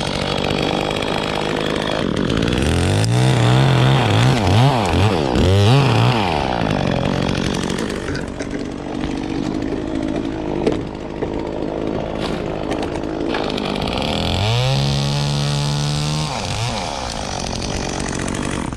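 Two-stroke chainsaw running. It is revved up and down in quick bursts a few seconds in, then held at high revs for about two seconds near the end. A sharp knock comes around the middle.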